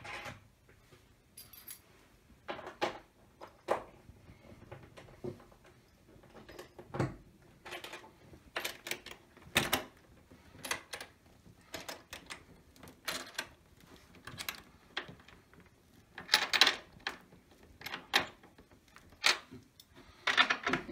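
Irregular knocks, clicks and small rattles of a flat-pack sofa being put together by hand, its wooden frame parts and metal fittings handled and knocked together. A few louder knocks come near the middle and near the end.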